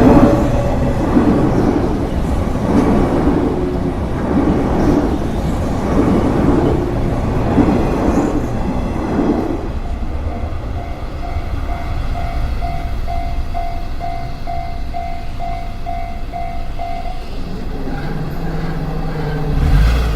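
Electric train passing over a level crossing, its wheels clattering in a slow rhythm over the rail joints for about the first half. Then the crossing's warning bell rings on by itself, about two strikes a second, and stops a few seconds before the end, when a road vehicle starts to rumble past.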